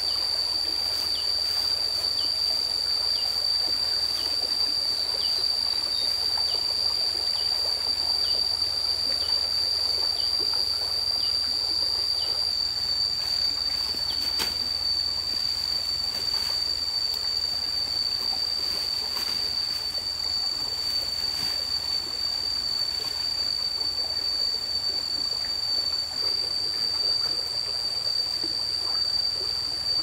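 Outdoor nature ambience: a steady high-pitched drone throughout, with a short falling chirp repeated a little faster than once a second for the first dozen seconds, over a soft steady hiss with occasional clicks.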